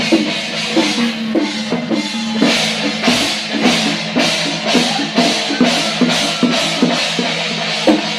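Drum-led percussion music with a steady beat of about three strikes a second, over pitched notes that hold and change underneath.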